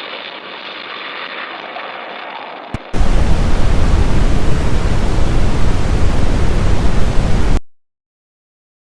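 A fainter hiss at first, then a click and a sudden loud burst of static noise, steady and heavy in the low end, lasting about four and a half seconds before cutting off abruptly into dead silence. It is the sound of the alert broadcast's signal dropping out.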